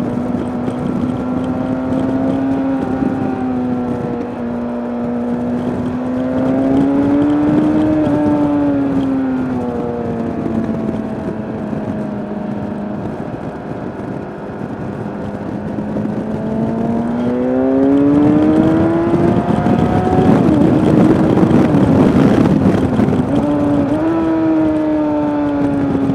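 2003 Kawasaki ZX6R inline-four sportbike engine running on the move, its pitch rising and falling with throttle and gear changes. About three quarters of the way through, a louder stretch of hard acceleration brings in a rushing noise, and then the pitch drops back.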